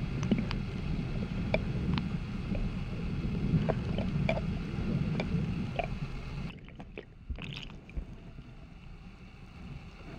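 River current rumbling steadily through an underwater camera, with scattered sharp clicks and ticks. About six and a half seconds in, the upper hiss drops away and the sound becomes quieter.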